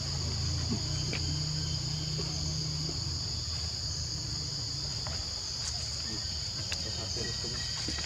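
Steady high-pitched drone of insects calling in the forest, unbroken throughout, with a low rumble underneath for the first few seconds and a few faint clicks.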